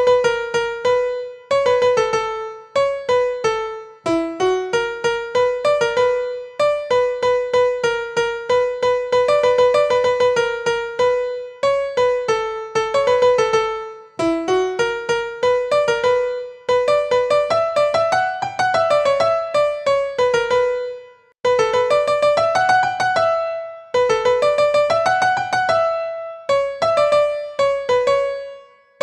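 Background music: a bright piano melody of quick plucked-sounding notes in short repeating phrases.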